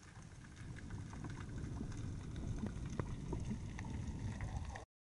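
Underwater sound through a camera's waterproof housing: a low rumble of water moving past as the diver swims along the reef, growing louder about half a second in, with scattered faint clicks and crackles. It cuts off abruptly near the end.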